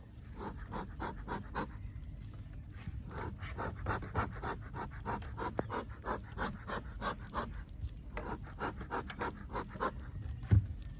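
Rapid, rhythmic panting, about three to four breaths a second, with a short pause partway through, and a single thump near the end.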